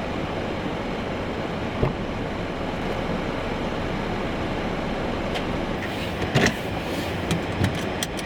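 Steady road-traffic noise, with a single knock about two seconds in and a run of sharp clatters and knocks near the end.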